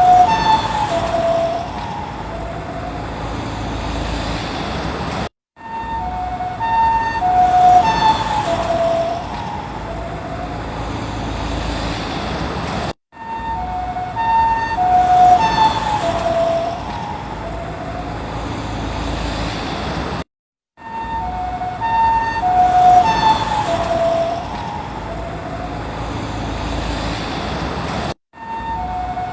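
Ambulance two-tone hi-lo siren passing by, its pitch dropping as it goes past (the Doppler effect) and then fading away under vehicle and road noise. The same pass repeats four times, each broken off by a brief gap of silence.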